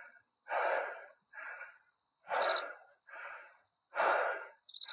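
A man breathing hard, out of breath after exertion: three heavy breaths about every second and a half, each followed by a softer one.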